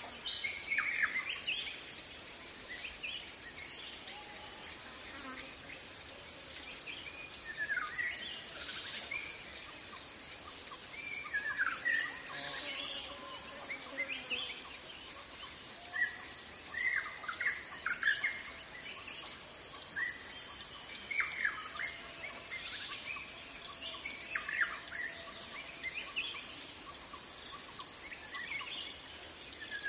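Forest ambience: a steady, high-pitched chorus of insects runs unbroken while birds give short chirps and calls, scattered every second or two.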